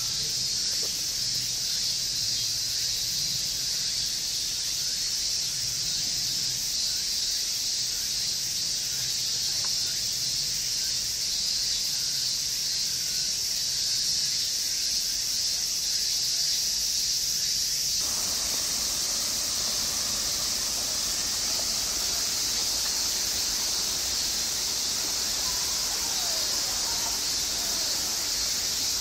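Summer cicadas in a steady, high-pitched chorus that drones without a break.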